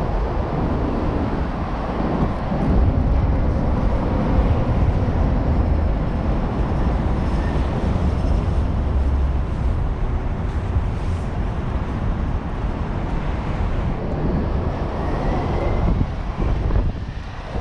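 Wind buffeting an action camera's microphone during a bicycle ride, a steady low rumble with road and traffic noise mixed in. It dips briefly near the end.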